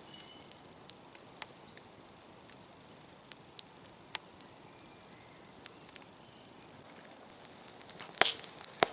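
Scattered sharp clicks and crackles, with two louder knocks near the end.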